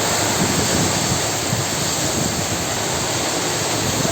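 Storm of strong wind and heavy rain, a loud steady rush of noise without letup, with wind buffeting the microphone.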